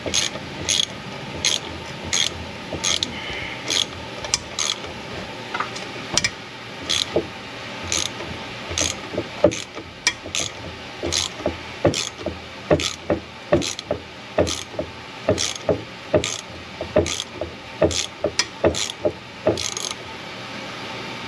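Socket ratchet clicking in a steady run, about two or three clicks a second, as it is swung back and forth to turn a thread tap, re-tapping a drilled-out exhaust stud hole in a Ford FE cylinder head.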